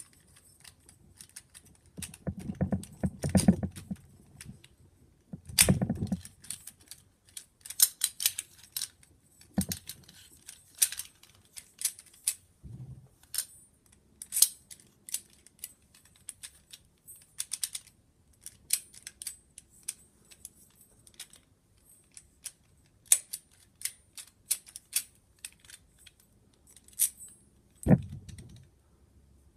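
Schlage 707 doorknob lockset being handled and worked: a run of sharp metallic clicks and rattles from its brass parts, with a few dull knocks against the mat, the heaviest about three, six and twenty-eight seconds in.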